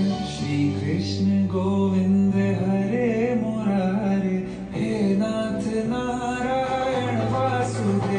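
Devotional Krishna bhajan: a sung melody over instrumental accompaniment with steady sustained low notes.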